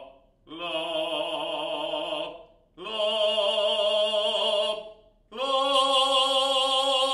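A male bass voice singing sustained 'la' notes with vibrato, three of them about two seconds each, every one higher than the one before. Heard through a Shure SM58 dynamic microphone about five metres away.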